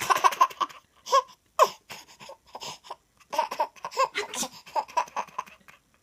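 A 10-month-old baby laughing in fits: a quick string of short laughs at the start, two single bursts soon after, then another long run of rapid laughs from about three seconds in.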